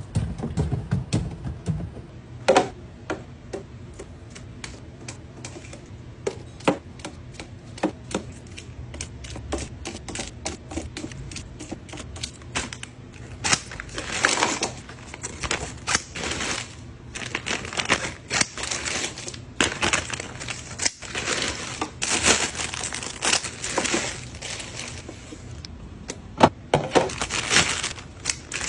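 Small plastic items and packaging being handled while a fridge is restocked: a rapid run of light clicks and taps, with several brief rustling, pouring rushes.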